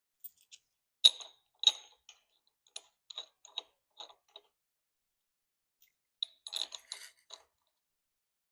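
Light clicks and clinks of small parts being handled and fitted by hand. Two sharp clicks come about a second in, then scattered faint taps, and a short cluster of clicks near the end.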